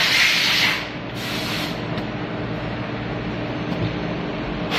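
Automatic soldering machine running with a steady hum, its pneumatics letting out short bursts of compressed-air hiss: one fading about half a second in, another about a second in, and a third starting right at the end.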